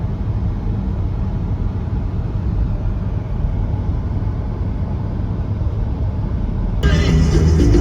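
Steady low rumble of a vehicle in motion, with no distinct events. Music cuts back in near the end.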